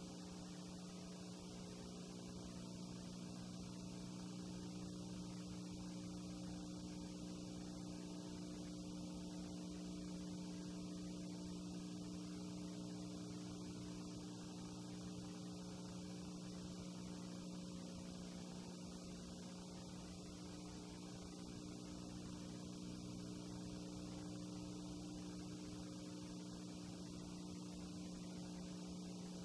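Steady electrical hum with a constant hiss underneath: the empty soundtrack of a silent 8 mm film transferred to VHS tape, with no sound from the event itself.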